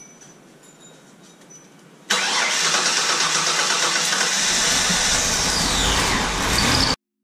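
Ford Taurus engine, soaked with Seafoam engine treatment, cranked over by the starter about two seconds in, then catching and running with a deeper rumble building. The sound cuts off suddenly near the end.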